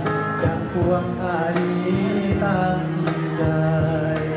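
Live acoustic band: a man singing a Thai song over acoustic guitar strumming, with sharp cajon beats.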